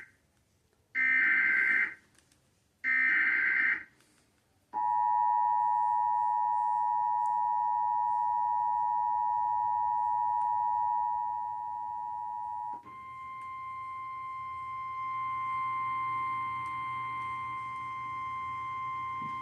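Emergency Alert System tones on a cable TV alert. Two harsh one-second digital data bursts (the SAME header) come first, just after a short blip. Then the steady two-tone EAS attention signal is held for about eight seconds, and it switches to a single steady, slightly higher tone for the last six seconds.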